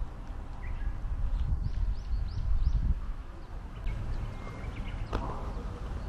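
Outdoor ambience under a steady low rumble, with a small bird giving a quick run of about five short chirps a second and a half to three seconds in. A single sharp click sounds near the end.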